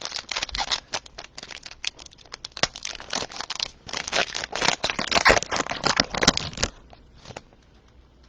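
A trading card pack's plastic wrapper crinkling and tearing as it is opened, in a dense run of rustles and crackles that stops about two-thirds of the way through.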